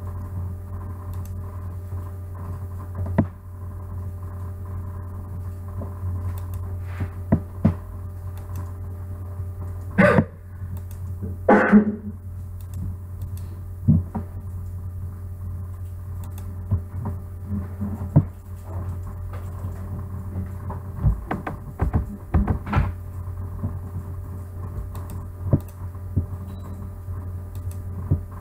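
Steady low electrical hum, with scattered short clicks and knocks of a computer mouse being used. There are two louder noises about ten and twelve seconds in.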